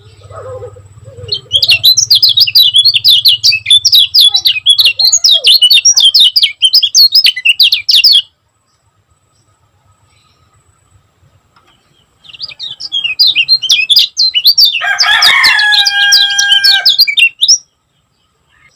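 Kecial kuning white-eye singing in fast, dense runs of high chirps: one run of about six seconds, a pause of a few seconds, then a second run of about five seconds. During the second run a lower, held call lasting about two seconds sounds along with the chirping.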